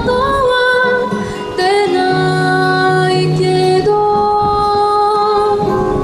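A young girl singing live into a microphone over backing music, holding long, slow notes.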